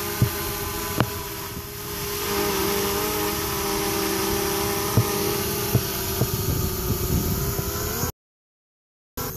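DJI quadcopter drone's propellers buzzing as it climbs just after takeoff, a steady pitched hum with a few sharp clicks. The sound cuts off suddenly near the end.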